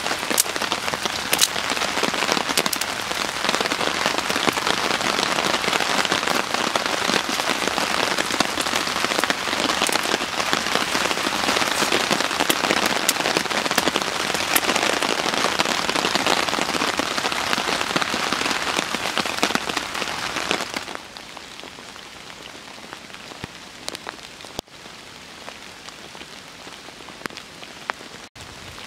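A freshly lit tinder bundle and kindling burning: a dense crackling hiss packed with small pops. About two-thirds of the way through it drops suddenly to a much quieter crackle.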